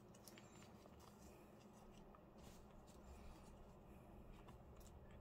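Near silence: faint, scattered light ticks and rustles of paper stamps and stickers being handled.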